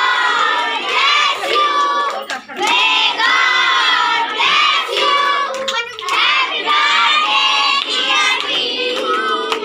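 A group of children singing together in phrases, with hand clapping.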